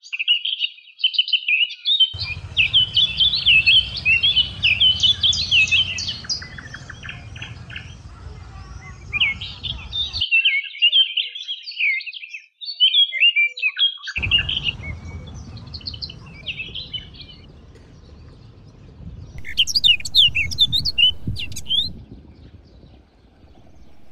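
Many small birds chirping and twittering in a dense, busy chorus of quick high notes, with a burst of steeper, higher sweeping calls near the end. A low background rumble sits under the birds for long stretches and cuts in and out abruptly.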